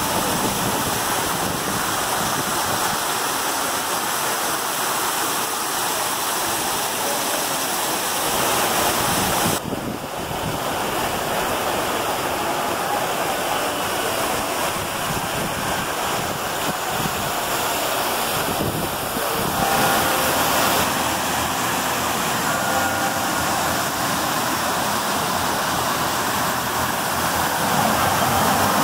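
Steady rushing noise, with a brief dip about ten seconds in.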